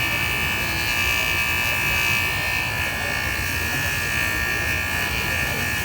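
JOOLTOOL bench polisher's motor running at speed with its abrasive disc spinning: a steady high-pitched whine over a hiss.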